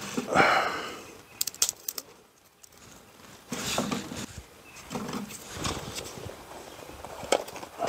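Crumpled paper rustling and dry twigs clicking as kindling is packed into the firebox of a small metal wood stove. A rustle comes near the start, then scattered sharp clicks and brief rustles.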